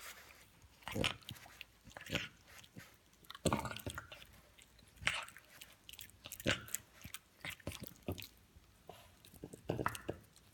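French bulldog chewing and gnawing on a toothbrush-shaped dog chew toothbrush, in short irregular bouts every second or so.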